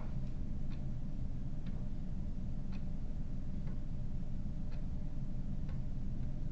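Wooden escapement of a weight-driven wooden gear clock (Clayton Boyer "Simplicity" design, Baltic birch plywood and poplar) ticking about once a second with light, dry clicks, over a steady low background rumble.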